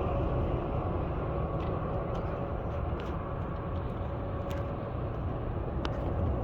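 A car driving at steady speed: a continuous low rumble of engine and road noise, with a few faint ticks.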